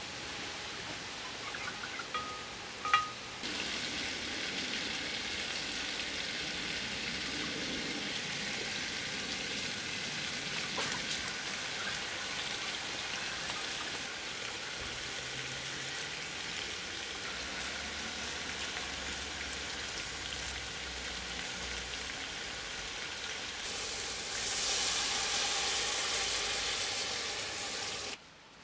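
Chicken and vegetables sizzling steadily in a hot metal pot over a fire. The sizzle starts about three seconds in and grows louder for the last few seconds as liquid is poured into the pot, then cuts off.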